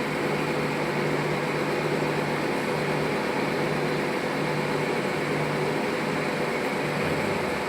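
Steady mechanical hum: an even noise over a low steady tone.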